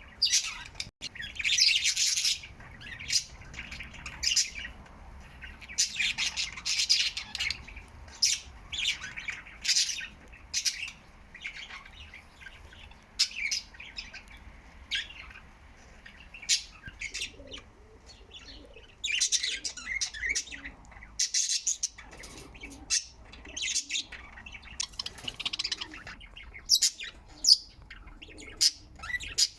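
Budgies chirping and chattering: many short, high chirps with several longer stretches of dense warbling chatter.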